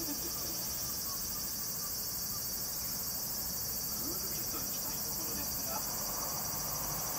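A chorus of cicadas shrilling: a dense, steady, high-pitched drone.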